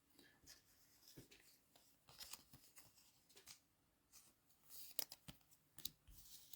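Trading cards being handled and flicked through by hand: faint rustling and soft clicks, with a few sharper snaps about five to six seconds in.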